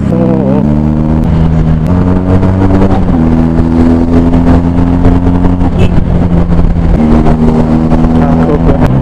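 Benelli TNT 300 parallel-twin running steadily through its Leo Vince Cobra aftermarket exhaust at cruising speed. Over it a man's voice hums or sings a tune in long held notes, stepping up and down in pitch every second or so.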